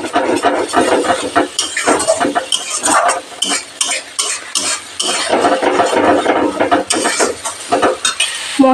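Steel spatula stirring and scraping thick spice paste around a metal kadai, with irregular scrapes and clinks against the pan. The paste is being fried down in oil until it dries.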